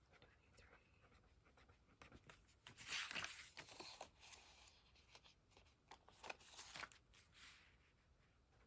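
Faint rustling of paper banknotes being handled, loudest about three seconds in, with the light scratch of a pen writing on paper.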